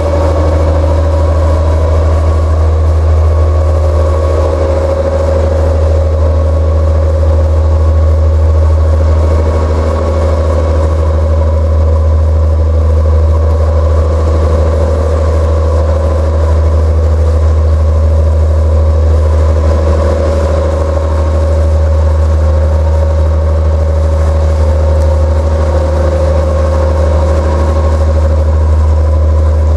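Narrowboat engine running steadily: a deep, even hum with a steady higher tone above it.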